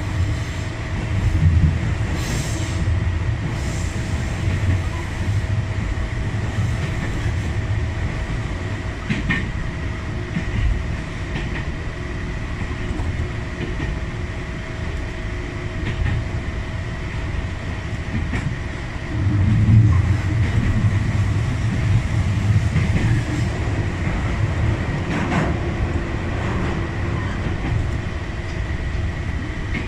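Electric train running along the track, heard from inside the driver's cab: a steady low rumble of wheels on rail with a constant hum and scattered clicks over the rail joints. The rumble swells louder about 2 s and again about 20 s in.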